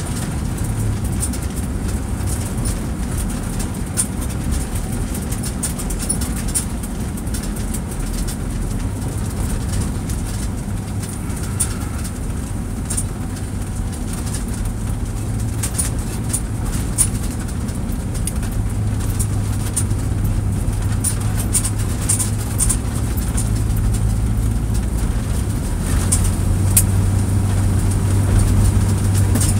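Steady engine and road noise inside a moving car's cabin: a constant low hum over tyre noise, with scattered light ticks.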